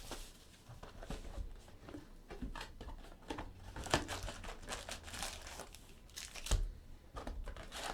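Trading card pack wrapper crinkling and tearing as it is opened by hand, with irregular rustles and light clicks from the packaging and cards.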